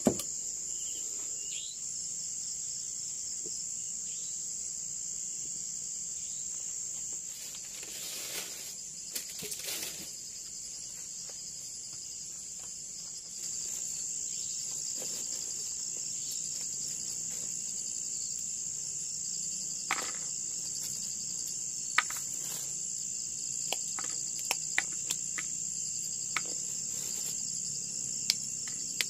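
Steady high-pitched chorus of insects, growing a little louder about halfway through, with scattered light clicks and knocks over it.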